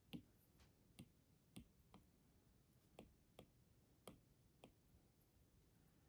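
Faint, light taps of an Apple Pencil's hard plastic tip on an iPad's glass screen, about ten sharp clicks at uneven intervals.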